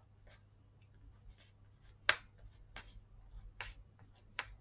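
Thick Stabilo Woody crayon-pencil tip working on acrylic-painted paper: faint scratching, then four sharp taps spaced a little under a second apart as it dabs short marks.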